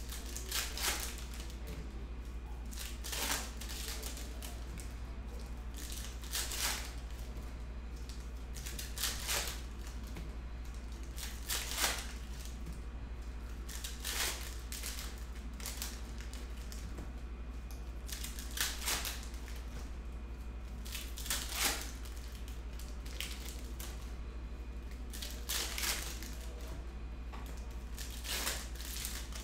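Foil trading-card packs being torn open one after another: about ten short crinkly rips, one every two to three seconds, over a steady low hum.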